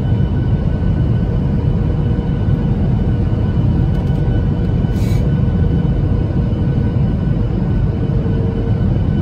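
Steady cabin noise of a jet airliner on approach to landing, heard from a window seat over the wing: a loud low rumble of engines and airflow with a few faint steady tones above it. A brief high-pitched sound about five seconds in.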